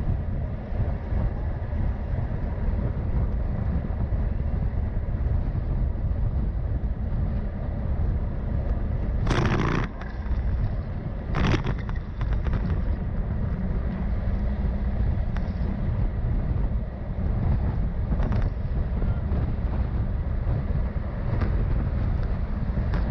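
Steady rumble of wind and road noise on a moving microphone, broken by two short, sharp sounds about nine and eleven seconds in.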